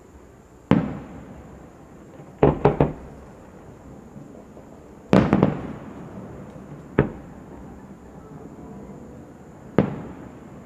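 Aerial firework shells bursting: a sharp bang about a second in, a quick run of three bangs a little later, a double bang about halfway, then single bangs near seven seconds and near the end. Each bang trails off in an echoing rumble.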